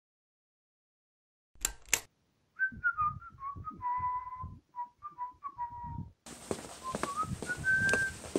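Silence, then two sharp clicks of a light switch about a second and a half in. A person then whistles a jaunty tune in short stepping notes, and a steady hiss comes in under the whistling near the end.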